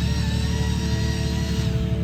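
Background music, with a held high chord that fades out near the end.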